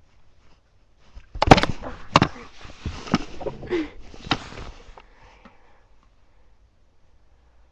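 Handling of a lighter insert and a lighter-fluid bottle: four or five sharp clicks and knocks with some hissing between them, starting about a second and a half in and dying away by about five seconds.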